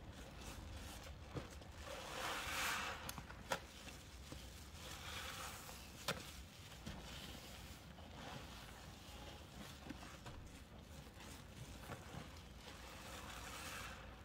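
Hands squeezing and working soapy sponges coated in a baby-powder paste: soft squishy, crunchy swells every few seconds, with a couple of sharp clicks.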